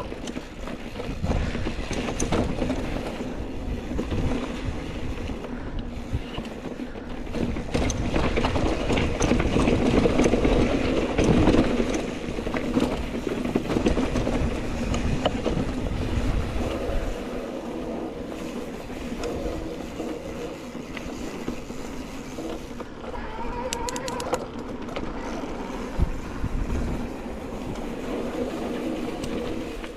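Mountain bike riding down a dry, rocky dirt singletrack: tyres crunching over loose dirt and stones, with the bike rattling over bumps. It is loudest about ten seconds in.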